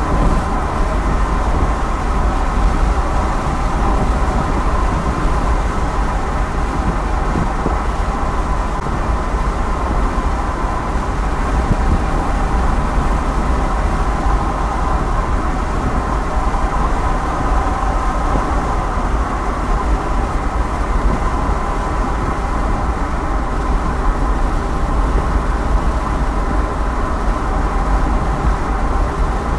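Steady road noise of a car driving in traffic: a continuous deep rumble with a faint hum above it.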